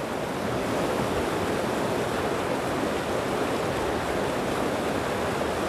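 Fast mountain river rushing steadily over rocks in a white-water riffle.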